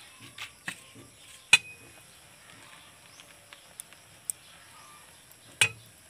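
Light clicks and knocks around a metal cooking pot over a wood fire. One sharp metallic clink about a second and a half in rings briefly, and another knock comes near the end.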